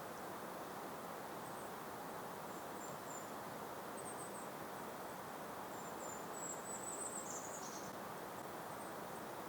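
Steady soft rushing of a gentle breeze across an open meadow, with faint, very high, thin bird chirps scattered through it. A longer high twittering phrase comes from about six to eight seconds in.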